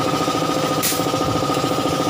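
Shop machinery running steadily with a rapid, even pulse and a steady whine. A short hiss of air comes about a second in.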